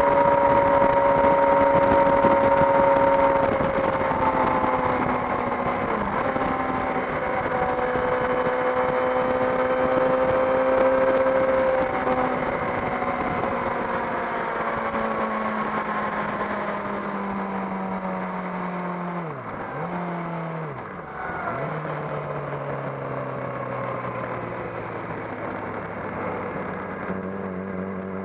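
Yamaha YZF-R6 600 cc inline-four motorcycle engine with a Jardine aftermarket exhaust, ridden at speed. Its note starts high and steady, then falls in steps as the bike slows, with two brief sharp dips in pitch about two-thirds of the way through. It ends on a lower, quieter note.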